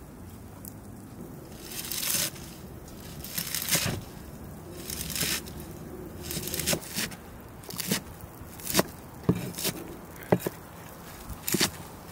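Large cleaver chopping a pile of fresh spinach and leafy herbs on a wooden cutting board: separate chops about one to two a second, with the leaves rustling and crunching as they are handled in the first few seconds.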